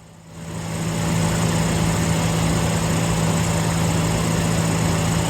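Electric air compressor starting up: its motor and pump kick on about half a second in, build up within a second, and settle into a loud, steady running hum with a broad mechanical noise.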